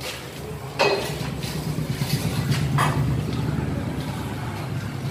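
Engine of a small borewell drilling rig running steadily, a low hum that grows louder about a second in, with sharp metallic knocks from the steel drill rods about a second in and again near three seconds.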